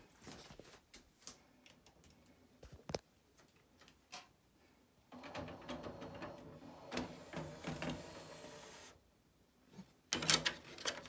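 Samsung HT-X50 DVD changer's motor-driven carousel disc tray sliding open, a steady mechanical run lasting about four seconds, after a few handling clicks. Near the end a disc is set down on the plastic carousel tray with a short clatter of knocks, the loudest sound here.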